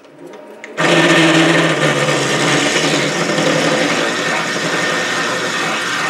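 SC2 mini lathe running while a 16 mm drill bores into spinning Delrin stock. The cutting noise starts suddenly about a second in and then holds steady over the lathe's motor and gear whine.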